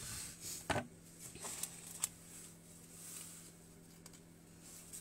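Soft rustling of leaves and flower stems being handled, with a few light clicks, the sharpest just under a second in, over a faint steady low hum.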